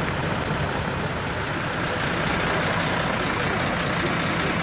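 Large diesel truck engine idling steadily with an even low pulsing exhaust note, from a dekotora with a split exhaust manifold (mani-wari).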